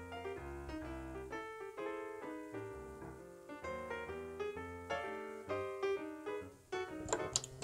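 Background piano music, a steady run of single notes over soft low bass. Two sharp clicks near the end.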